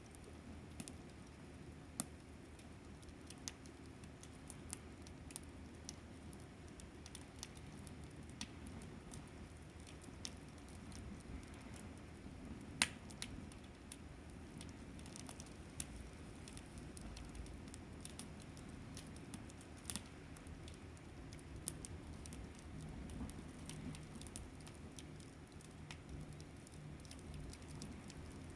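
Wood fire crackling faintly, with scattered irregular pops and snaps over a low steady rumble; the sharpest snaps come about 13 and 20 seconds in.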